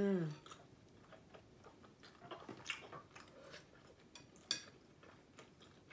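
A person eating noodle soup: a short hummed "mm" at the start, then soft chewing with a few light clicks of metal chopsticks against a glass bowl, the sharpest about four and a half seconds in.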